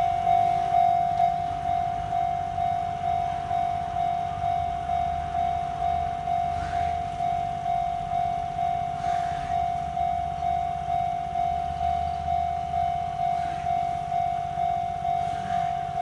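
Japanese railway level-crossing warning bell ringing, a steady repeating ding on one high pitch at a little under two strokes a second, signalling that the crossing is closed for an approaching train.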